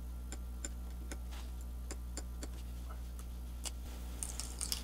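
Light, irregular ticks and scratches, about two or three a second, of a thin pointed tool picking at the edge of a warranty sticker on a PlayStation 3 Phat's plastic casing, with a few quick scrapes near the end as the sticker starts to lift. A low steady hum lies underneath.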